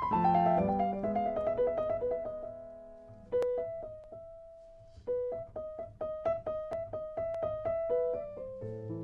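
Background piano music: a melody of struck notes that thins out and almost pauses twice, then picks up again with a run of repeated notes.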